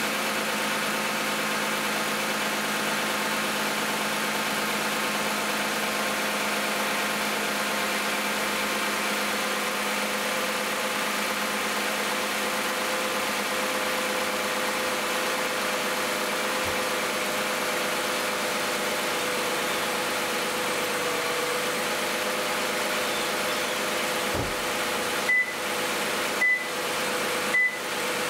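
2010 Toyota Camry's 2GR-FE 3.5-litre V6 idling steadily shortly after a cold start. Near the end, three short high beeps about a second apart.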